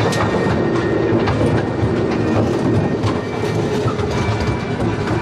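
Train running along its track, with repeated clicking from the wheels over the rails over a steady rumble.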